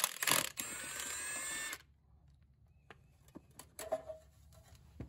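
Milwaukee cordless impact wrench on a bolt: a couple of sharp hammering blows, then a whirring run that rises in pitch and stops about two seconds in. A few light knocks follow.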